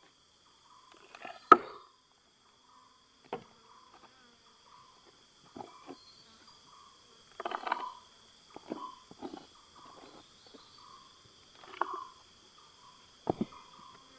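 Steady high drone of insects, several constant tones at once, with irregular knocks and scrapes of digging for gold-bearing material, the sharpest knock about a second and a half in and another near the end.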